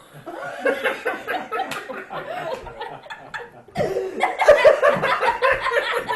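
Several people laughing and chuckling together, with mixed voices; it dips briefly and then grows louder about two-thirds of the way in.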